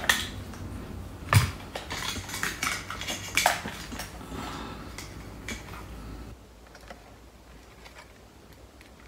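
Irregular clicks, knocks and rattles of small plastic and metal parts handled on a workbench: a Wi-Fi switch board and its plastic housing being fitted together, and tools picked up and set down. The handling dies down about six seconds in.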